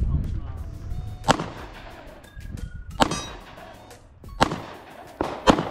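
Pistol shots from a SIG Sauer handgun, fired one at a time about every one and a half seconds, four or five sharp reports in all, each with a short echo.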